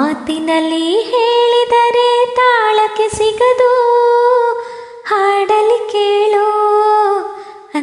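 A woman singing a slow song solo, holding long notes that bend slowly in pitch, with a short breath break about five seconds in.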